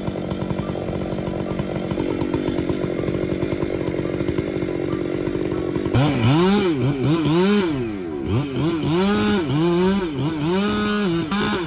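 Chainsaw engine running at steady high speed, then from about halfway revving up and down over and over, the pitch rising and falling about once a second.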